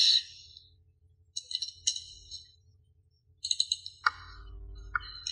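Computer keyboard typing and mouse clicks: short bursts of rapid clicks, in three spells separated by quiet gaps.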